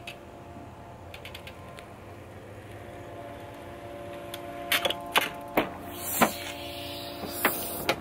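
A steady background hum, then from about halfway a series of sharp clicks and knocks, roughly half a second apart, as a man walks a bicycle up over asphalt.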